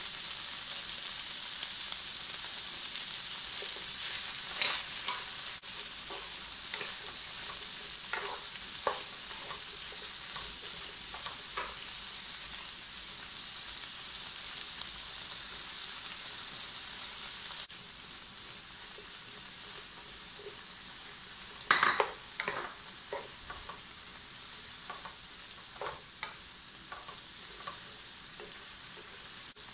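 Bok choy stems sizzling in oil in a nonstick frying pan while a wooden spatula stirs them, scraping and tapping against the pan. A louder cluster of knocks comes about 22 seconds in, and the sizzle grows gradually quieter.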